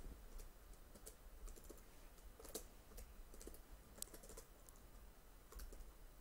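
Faint, irregular keystrokes on a computer keyboard as a short command is typed.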